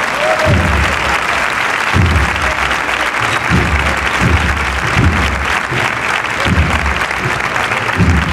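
Crowd applauding at the end of a cornet-and-drum band march, with a steady low drum beat under the clapping, about once a second.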